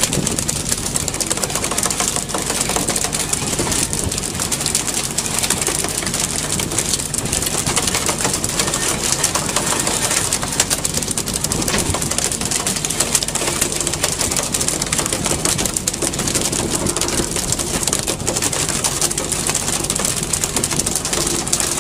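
Fishing boat's engine running steadily under a constant hiss of wind and rushing sea water.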